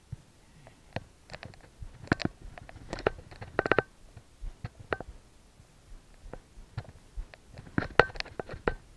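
Irregular clacks, knocks and scuffs from a mock knife fight with plastic toy knives: quick footsteps on dry leaf litter and hard plastic striking, in clusters with short pauses between.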